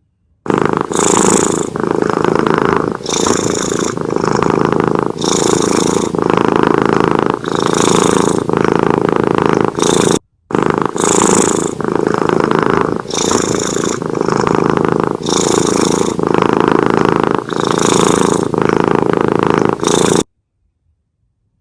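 A sleeping cat snoring loudly, a continuous rumble that swells and eases with each breath, about one breath every two seconds. It breaks off for a moment near the middle and stops about a second before the end.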